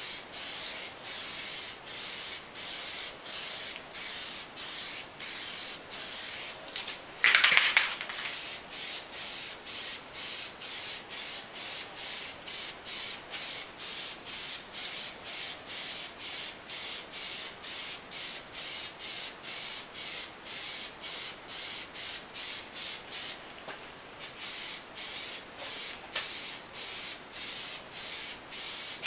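Aerosol can of Plasti Dip spraying: a hiss that pulses about twice a second, with one louder, closer burst of spray about seven seconds in.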